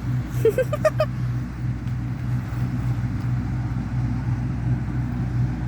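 Combine harvester engine running with a steady low drone during harvesting.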